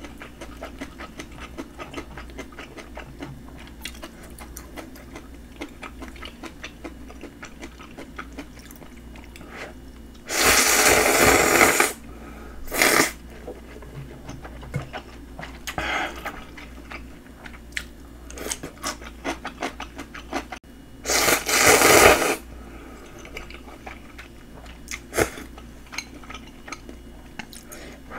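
A person eating: chewing, with the small clicks of chopsticks on a plate and bowl. Two louder rushing noises of about a second and a half each come about ten and twenty-one seconds in.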